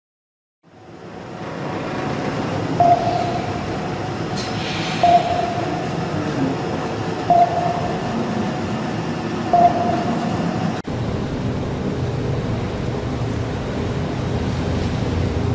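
Radar beeps: four short, mid-pitched beeps about two seconds apart, over a steady low rumble that fades in after a brief silence and carries on after the beeps stop.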